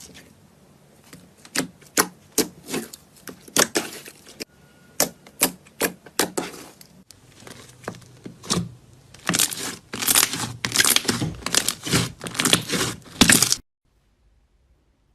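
Slime being squeezed and pressed by hand, giving sharp crackling pops and clicks. The pops come scattered at first, then thick and fast for the last few seconds before stopping suddenly.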